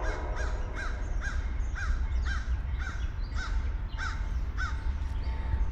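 Crow cawing in a steady run of about a dozen harsh caws, which stop near the end, over a steady low rumble.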